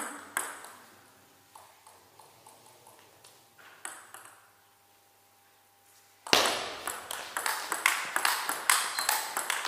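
Table tennis ball clicking off bats and table: a couple of clicks at the start and a few faint ticks, then a rally begins about six seconds in, with sharp hits about three times a second, echoing in the hall.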